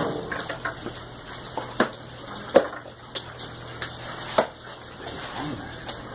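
Knife work and handling of a large fish on a cleaning table: scrapes and small clicks, with sharp knocks about two, two and a half and four and a half seconds in, the one near two and a half seconds the loudest, over water sounds.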